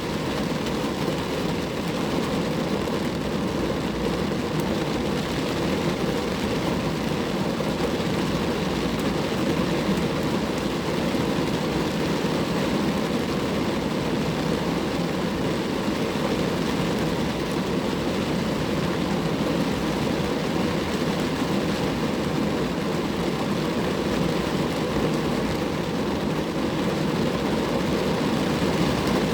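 Steady rain falling on a car, a continuous even noise with no breaks or changes.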